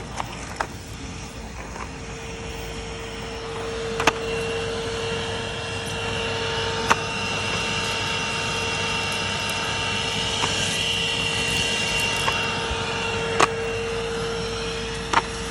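Numatic Henry vacuum cleaner running steadily, a constant hum with a high whine above it, its bag nearly full. A few sharp knocks sound over it, about four seconds in, near seven seconds and again near the end.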